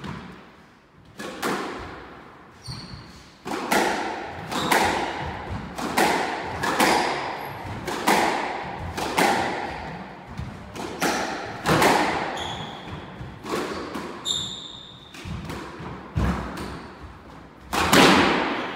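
Squash rally: the ball cracks off rackets and the court walls about once a second, each hit ringing in the enclosed court, with short squeaks of shoes on the wooden floor. The loudest hit comes near the end.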